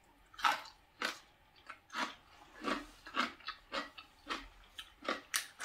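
A person chewing a mouthful of food close to the microphone, in a steady rhythm of about two chews a second.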